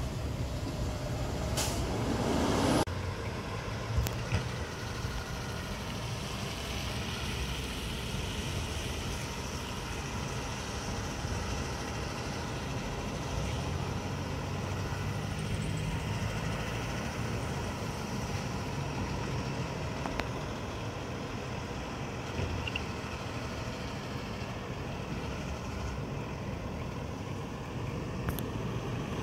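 Diesel engine of a Labrie Expert 2000 garbage truck on an International chassis running steadily as it works along the street. About two seconds in, a loud hiss lasts about a second and then cuts off suddenly.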